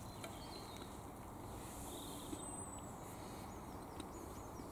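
Quiet outdoor background of low, steady noise, with a short high bird whistle about halfway through and a few faint, high bird chirps near the end.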